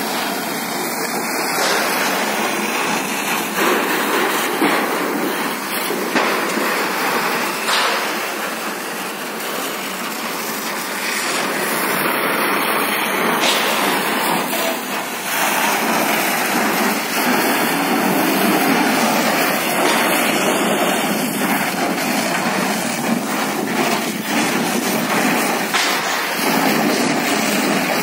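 Steady, loud rushing hiss of a fire hose's water jet spraying, with a few faint knocks.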